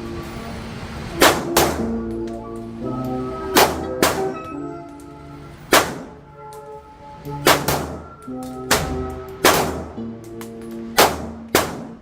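Pistol shots at an indoor range, about eleven sharp cracks at uneven intervals, some in quick pairs, over background music with held notes.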